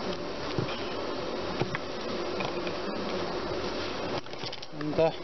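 A steady buzzing hum, with a few faint clicks as a hand-pumped hydraulic crimper is worked to close a lug onto a thick battery cable. A short voice sound comes near the end.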